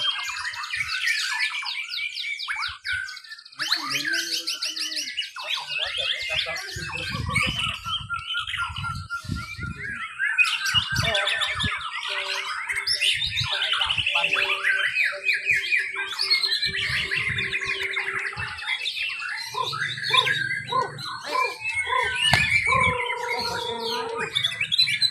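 Several white-rumped shamas singing over one another in contest cages: a dense, continuous stream of fast whistles, trills and chattering notes.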